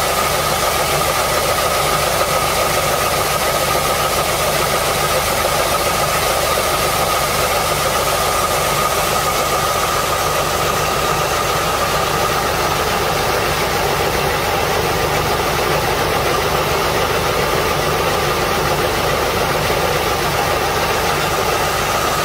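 Grain auger and its drive engine running steadily, with a constant high whine over the machinery noise.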